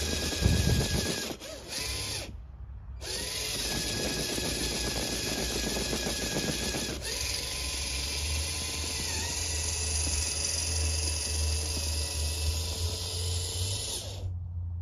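Twin electric motors and gearboxes of a radio-controlled Tamiya Clodbuster truck whining steadily as it plows through snow, the pitch dipping slightly under load. The whine drops out briefly about two seconds in and cuts off suddenly near the end.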